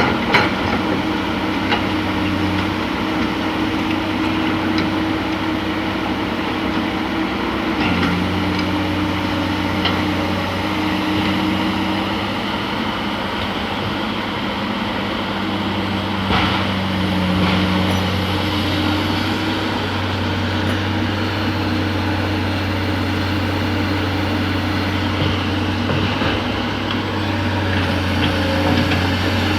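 Komatsu hydraulic excavator's diesel engine running under working load, its note stepping up and down a few times as the hydraulics are worked, with a few sharp knocks from the bucket and machinery.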